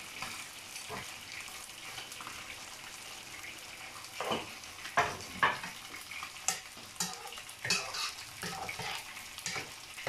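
Food sizzling in a hot pan while a utensil stirs it. From about four seconds in, a run of sharp scrapes and knocks against the pan rises over the steady sizzle.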